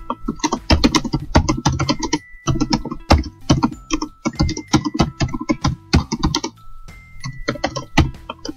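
Rapid typing on a computer keyboard, many key clicks in quick runs broken by short pauses. Soft tinkling background music plays underneath.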